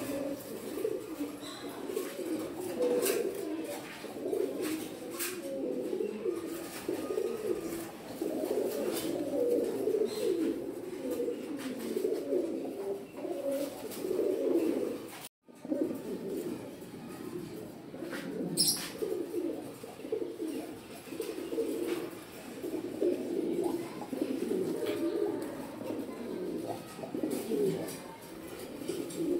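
A loft of fancy fantail pigeons cooing continuously, many low coos overlapping. The sound drops out briefly about halfway, then the cooing carries on.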